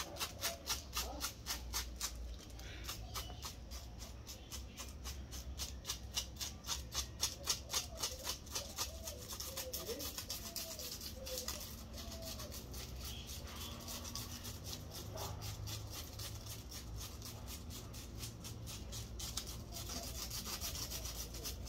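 Small kitchen sieve scraped rapidly with a plastic bag, about five rubbing strokes a second, sifting ground cinnamon. A low wind rumble on the microphone runs underneath.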